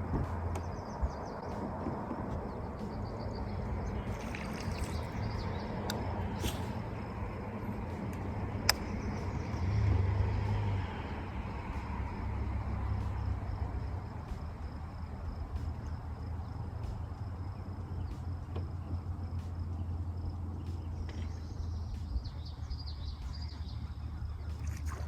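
Outdoor ambience on a lake: a low steady hum, faint bird chirps and a thin steady high tone like an insect. A single sharp click comes about nine seconds in.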